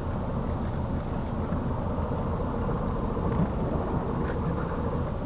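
Scania 124L 420's straight-six diesel engine running steadily at low revs, heard from inside the cab.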